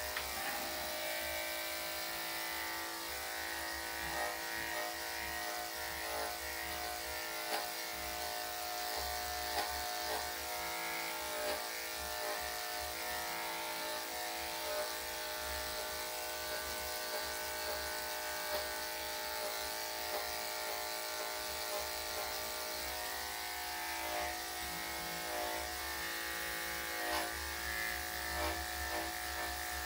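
Electric dog grooming clippers fitted with a #5 blade, running with a steady buzz as they clip a Yorkshire Terrier's body coat, with a few faint short clicks.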